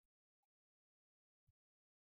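Near silence: the sound track is essentially empty, with a few very faint isolated ticks.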